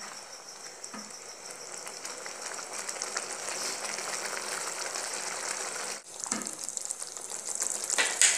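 Tomato sauce sizzling and bubbling as it cooks in a pan, a steady crackly hiss that grows louder over the first few seconds and breaks off briefly about six seconds in. A couple of light knocks of the wooden spatula against the pan near the start.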